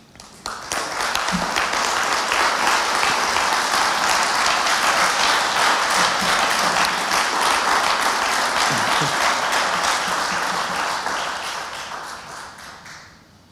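An audience applauding. The clapping starts about half a second in, holds steady, then dies away over the last couple of seconds.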